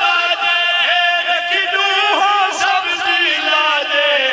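A zakir and his backing reciters chanting a sung elegy together, long wavering notes in men's voices.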